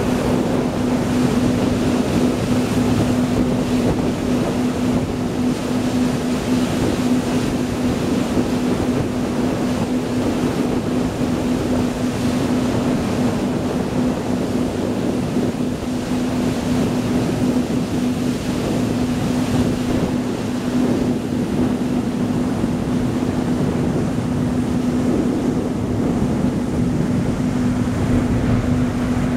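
High-speed passenger ferry under way: a steady engine drone with a constant low hum, over a rush of water and wind.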